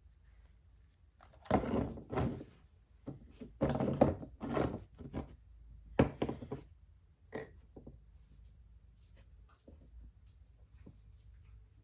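Irregular knocks, thuds and clatter of small hard objects being handled and set down on a workbench, with a sharp click a little past the middle; no machine is running.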